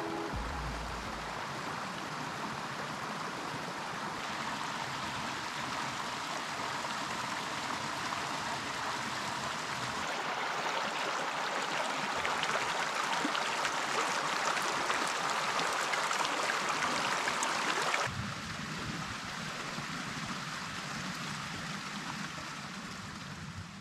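A little stream running and babbling over rocks under the snowbanks. It gets louder and closer about ten seconds in, then drops back suddenly some eight seconds later.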